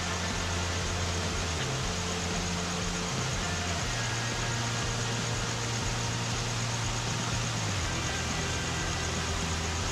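A steady low engine-like hum that shifts in pitch now and then, under a constant hiss.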